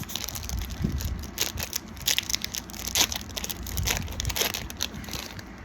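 Magic: The Gathering booster pack wrapper being torn open and crinkled by hand: a run of irregular crackles and rips, the sharpest about three seconds in.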